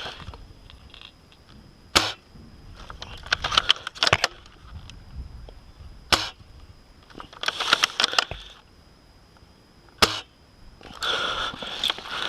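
Airsoft gunfire: four sharp single shots, the first three about two seconds apart and the last a few seconds later, with bursts of quick clicking and rattling between them.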